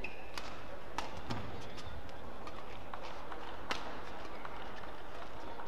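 Badminton doubles rally: rackets striking the shuttlecock in sharp cracks, the clearest about half a second, one second and nearly four seconds in, with the players' quick footwork on the court between them over a steady arena hum.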